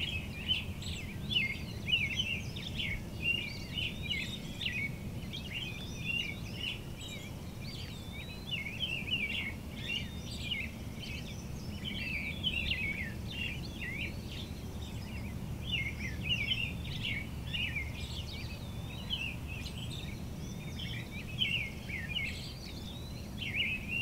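Many birds singing at once in a busy twilight chorus, a constant overlap of quick chirps and trills, over a steady low rumble.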